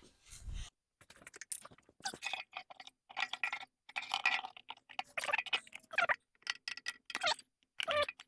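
Irregular clicks, knocks and light rattles of a thin plastic food container and its wet tubing being handled and lifted out of a machine's coolant sump.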